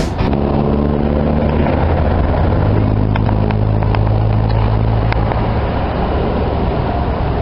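Motorbike engine running under way, a steady low drone over a rush of noise.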